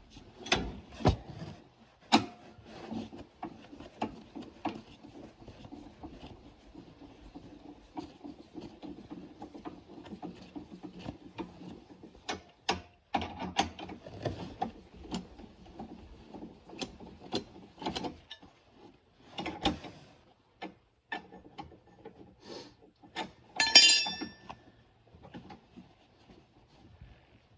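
A steel scissor jack and tire iron being handled as the jack is wound down and removed: scattered clicks, rattles and rubbing of metal parts, with one loud ringing metal clank near the end.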